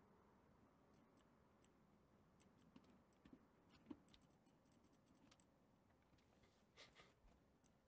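Near silence: room tone with faint, scattered clicks of a computer mouse and keyboard, including a quick run of clicks about four to five seconds in and a pair near the end.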